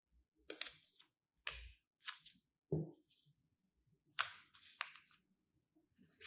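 Scissors snipping through glossy paper, cutting it into small squares: about half a dozen sharp, crisp snips at an uneven pace, with a duller soft knock about three seconds in.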